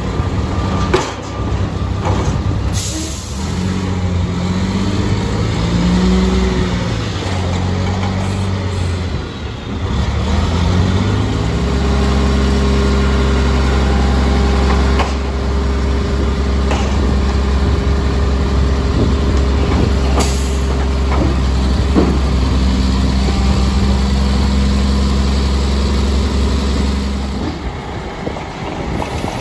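Diesel engine of a Mack MR front-loader garbage truck with a McNeilus Atlantic body running, its pitch wandering for the first ten seconds or so, then held at a steady raised speed for about fifteen seconds before dropping back near the end. A few brief, sharp hisses come through.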